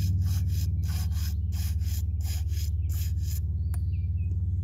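Concrete mixer running with a steady low hum. Over it, a rhythmic rasping swish about three times a second stops about three and a half seconds in.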